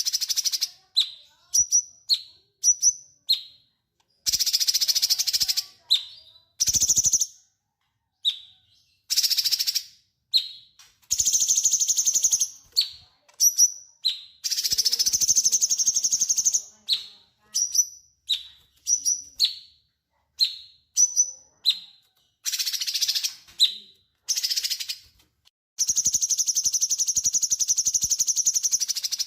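Cucak cungkok bird in full song: long, harsh chattering phrases of about one to two seconds alternate with runs of short, quick, falling whistled notes.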